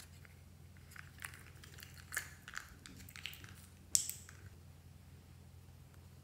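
Small plastic containers being handled: light clicks and rustles, then one sharp plastic click about four seconds in. A faint low hum runs underneath.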